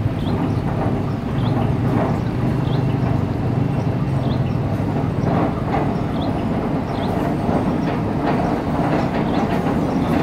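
Diesel-electric locomotive and passenger train crossing a long steel truss railway bridge. The engine hums steadily under irregular clacks and rattles of the wheels on the bridge track.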